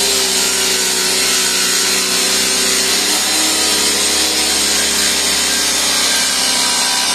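Small power saw with a small blade running steadily and cutting through plywood subfloor, a continuous whine at an even pitch.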